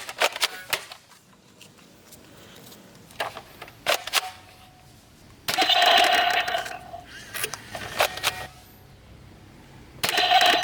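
Plastic toy guns being worked by hand: a string of sharp clicks and rattles. Twice, about five and a half seconds in and again near the end, there is a louder buzzing burst with a steady tone lasting about a second and a half.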